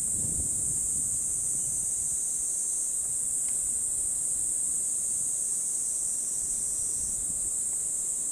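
Steady, high-pitched insect chorus running without a break, with low wind gusts buffeting the microphone near the start.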